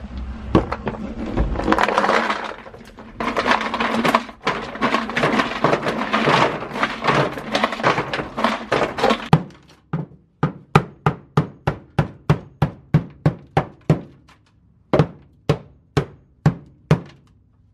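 Dry ice pellets crackling and clattering over a car's bare steel floor pan, then, from about ten seconds in, a run of sharp, evenly spaced knocks about two a second as the frozen, brittle sound-deadening mat is struck to crack it loose.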